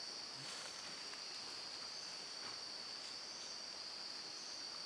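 Steady, high-pitched chorus of forest insects buzzing without a break, with a few faint clicks.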